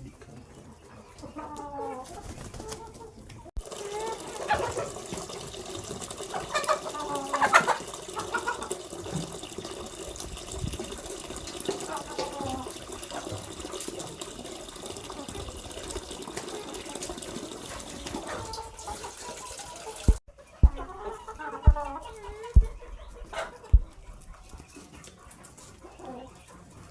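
A flock of chickens clucking and calling. A steady hiss lies under them through most of the middle. Near the end there are a few sharp knocks.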